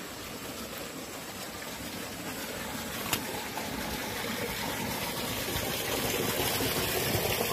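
Steady rush of flowing river water, growing gradually louder, with a single sharp click about three seconds in.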